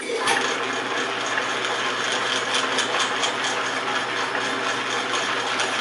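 1940 Sheldon 11-inch metal lathe with U-type underdrive, switched on and running: the sound starts suddenly and holds as a steady hum and whir of motor and drive gearing. The lead screw turns slowly at the slowest feed setting.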